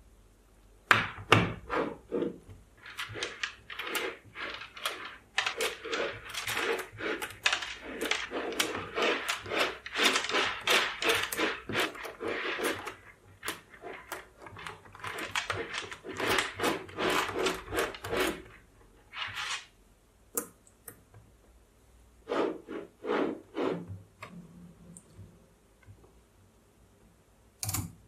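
Mini magnetic balls clicking and rattling against each other as they are pressed into a hexagonal wheel by hand. The clicks come in dense runs for most of the first two-thirds, then a few short clusters, and a single click near the end.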